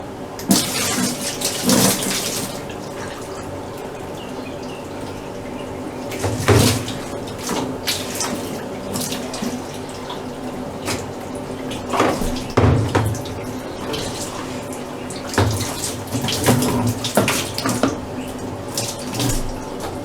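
Water running from a tap, with irregular louder bursts of splashing and handling as things are washed or rinsed.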